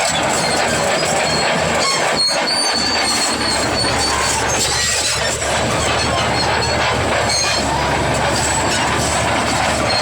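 Bulldozer at work: a steady engine drone under the squeal and clatter of its steel tracks.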